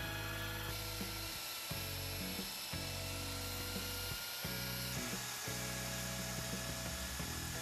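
Power-driven wire wheel brush whining steadily as it scrubs rust off a steel pistol part, over background music with changing low notes.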